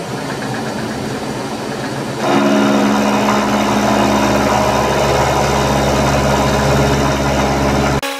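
Vertical milling machine running with an end mill, the table feeding the plate past the cutter. About two seconds in the sound turns louder and fuller as the cutter takes a 3 mm cut along the plate, then it stops abruptly near the end.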